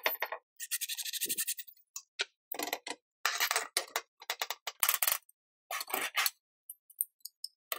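Cordless drill driving a screw into a steel frame, a fast, evenly pulsed run lasting a bit under two seconds. It is followed by a string of short metal clicks and scrapes as the bicycle-chain vise is handled, its sprocketed jaw moving along the chains.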